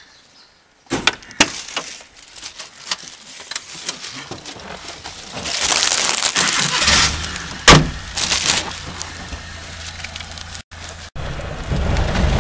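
A car door being handled and someone climbing into the car: a string of sharp knocks and clatter, a loud rush of noise, then the car's engine running with a steady low hum from about seven seconds in. A single sharp bang, like a door shutting, comes just after the engine note begins.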